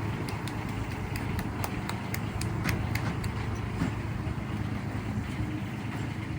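A steady low engine-like hum, with a run of sharp clicks at about three a second through the first half.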